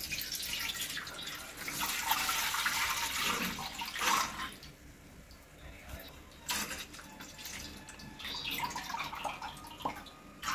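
Milk pouring from plastic pouches into a large metal pot: a splashing stream for about four seconds, then a couple of light knocks, and another pour in the last couple of seconds.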